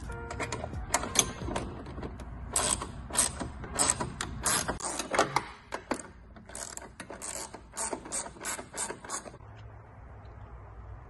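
Rapid, irregular metallic clicking and ratcheting as a screw is tightened by hand to fasten a chrome front rack onto a scooter. The clicks come a few a second and stop near the end, leaving a faint low hum.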